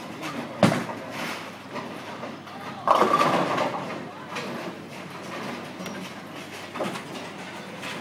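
Ten-pin bowling ball thudding onto the lane just after release, rolling down it, and crashing into the pins about three seconds in, the loudest sound, which dies away over about a second. Another knock follows near the end.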